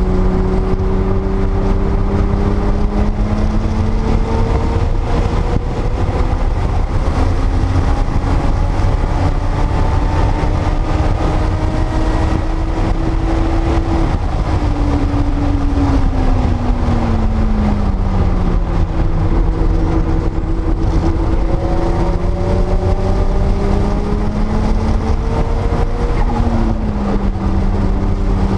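Porsche 930 Turbo's air-cooled, turbocharged 3.3-litre flat-six engine at speed on track. Its pitch climbs slowly, falls steadily for several seconds around the middle as the car slows, then climbs again, with a sudden drop near the end. A steady low rumble of wind and road noise runs underneath.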